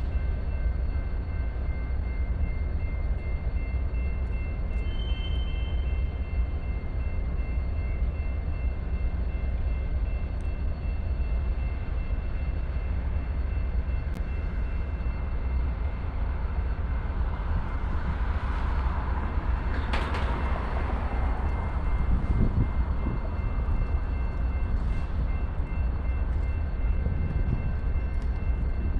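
BNSF freight train rolling slowly past, its cars making a steady low rumble. The sound swells briefly about two-thirds of the way through.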